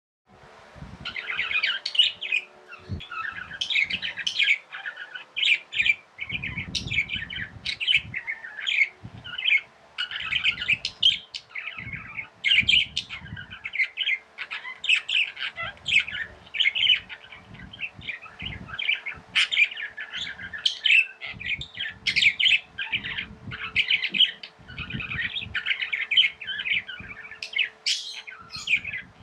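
Small pet parrots chirping and chattering in quick, overlapping chirps with hardly a pause, over a faint steady hum.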